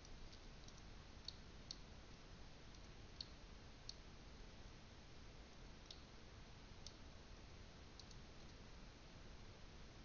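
Near silence with faint, scattered clicks of a computer mouse and keyboard being used, a few per second at most.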